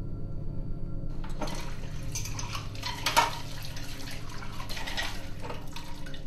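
Water running from a kitchen tap and splashing into a stainless steel sink, starting about a second in, with a louder splash near the middle, over a low steady hum.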